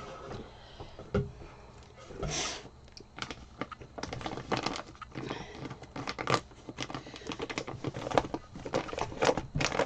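Plastic wrapping around a rolled diamond-painting canvas crinkling under the fingers as it is handled, in quick irregular crackles that grow denser about three seconds in.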